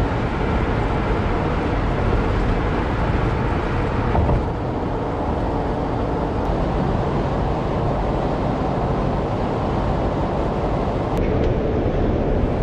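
Steady engine and road noise inside the cab of a box truck camper driving at highway speed, shifting slightly in tone about four seconds in and again near the end.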